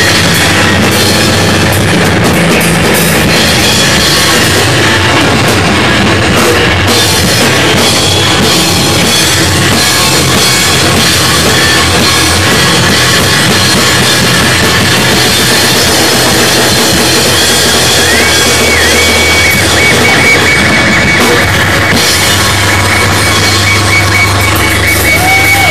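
A live rock band playing loudly, with drum kit and electric guitar. A high held note comes in about three quarters of the way through.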